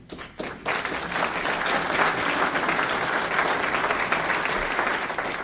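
Audience applauding: a few scattered claps at first, then steady applause from a roomful of people.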